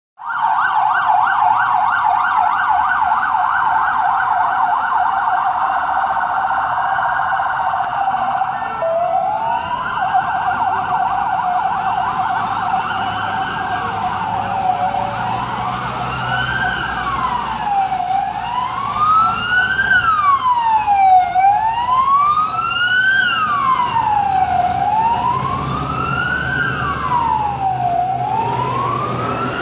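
Police and emergency-vehicle sirens: a fast yelp for the first half, giving way to slow rising-and-falling wails, with two sirens overlapping near the middle.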